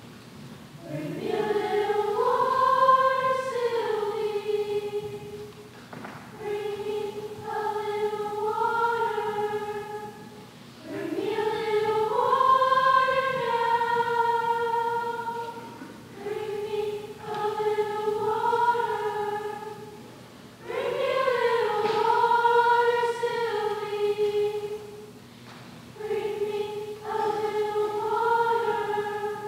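A choir singing a slow song in phrases of about four seconds with held notes, each phrase followed by a short pause.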